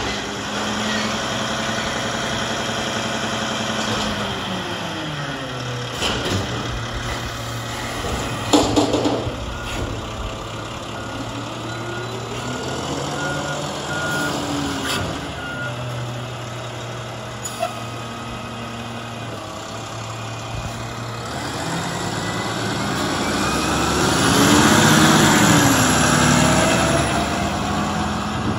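Mack MRU front-load garbage truck with a Wittke body working a container: the engine runs and revs with the hydraulics, and the container bangs a few times, around six and nine seconds in. The backup alarm beeps for a few seconds in the middle, and near the end the engine revs up louder as the truck pulls away.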